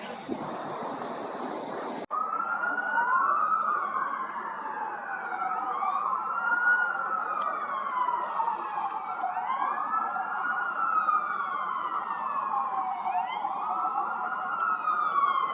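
A siren wailing, its pitch rising and falling over and over, each swell lasting about two to three seconds. It is preceded by a rushing noise that cuts off abruptly about two seconds in.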